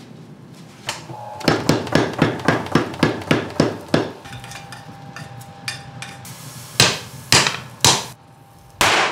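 Hammer blows on hot steel on an anvil: a quick run of about a dozen light strikes, roughly five a second, then after a pause three heavier, more widely spaced blows.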